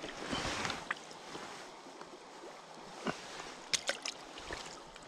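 A small rainbow trout splashing in shallow creek water at the bank as a hand reaches in for it, over the steady rush of the creek. A burst of splashing comes about half a second in, and a few sharp splashes about three to four seconds in.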